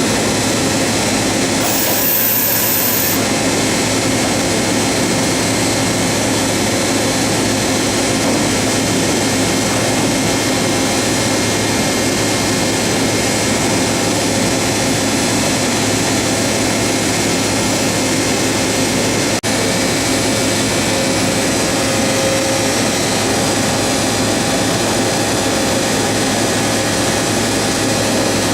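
Steady mechanical hum and hiss of a powered-up LeBlond Makino MC1813 CNC horizontal machining center and its auxiliary units, unchanging throughout, with a short high-pitched tone about two seconds in.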